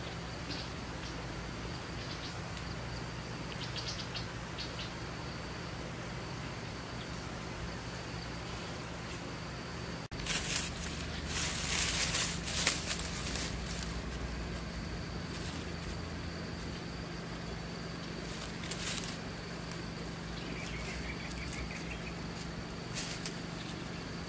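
Steady high insect drone, with dry leaves and soil rustling and scraping as hands dig through leaf litter, loudest about halfway through and again briefly near the end.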